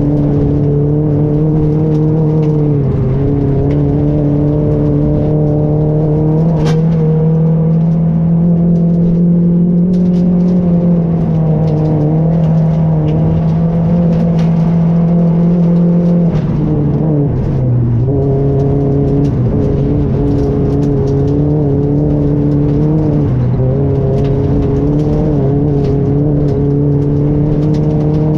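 Rally car's engine heard from inside the cockpit, running hard under load on a snow stage, its note holding steady with brief dips in pitch at gear changes about three seconds in, around seventeen seconds and again around twenty-three seconds.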